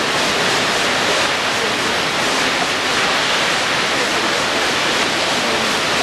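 Kegon Falls, a large waterfall, with its column of water plunging onto the rocks below: a steady, unbroken rush of noise that stays even throughout.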